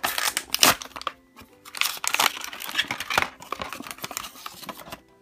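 Plastic blister packaging crinkling and crackling as a toy's blister pack is pulled away from its cardboard backing by hand. The card tears in irregular bursts, loudest in the first second and again about two to three seconds in, then quieter.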